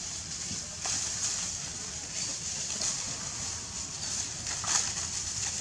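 Dry leaf litter rustling and crackling in a few short scattered bursts as young macaques move and forage on it, over a steady high hiss.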